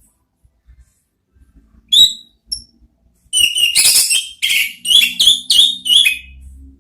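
Orange-headed thrush singing: a single clear whistled note about two seconds in and a short one after it, then a quick run of loud whistled phrases lasting about three seconds.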